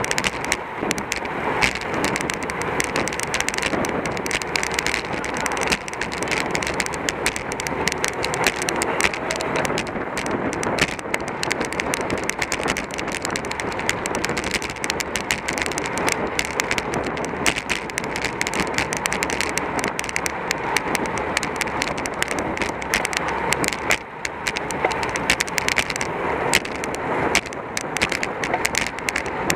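Riding noise picked up by a camera on a racing bicycle at speed: a steady rush of air and road with constant crackling and rattling.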